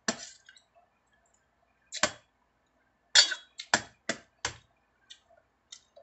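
Metal spoon and fork clinking and scraping against a stainless steel bowl of rice: a string of sharp clinks, several in quick succession about three to four and a half seconds in, then a few fainter ones.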